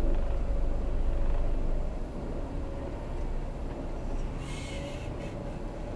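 Heavy truck's diesel engine and drivetrain rumbling low and steadily in the cab in slow traffic, with a steady hum over it. It is louder for the first two seconds, and a brief higher hiss comes about four and a half seconds in.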